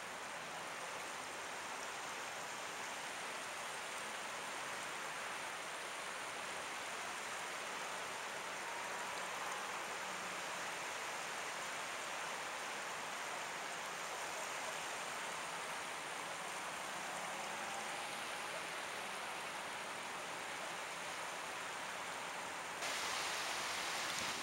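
Gentle surf washing on a beach, a steady even hiss of water. Near the end it switches abruptly to a louder, brighter rush of water.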